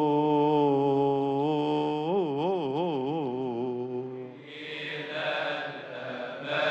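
A man's voice chants Coptic Orthodox liturgy solo, holding a long note into a microphone. About two seconds in, the note breaks into a wide, wavering melisma that dies away. From about halfway through, a group of voices takes over with a fuller, blended choral sound.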